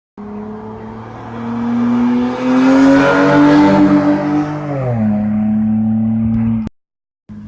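Lexus GS300's 2JZ-GE inline-six exhaust, running through resonators in place of the stock mufflers. It idles, is revved up and held for a couple of seconds with the note rising and getting louder, then drops back to idle. Near the end the sound cuts off abruptly for a moment and the idle resumes.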